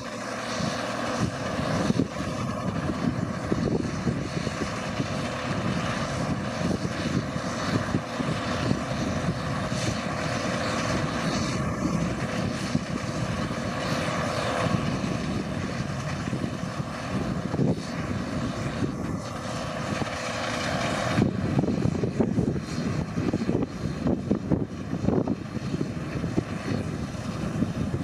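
Case IH Axial-Flow 1660 combine harvester running under load while cutting barley: a steady diesel engine and threshing-machinery noise with a constant whine in it. About three-quarters of the way through, the whine stops and the sound turns rougher.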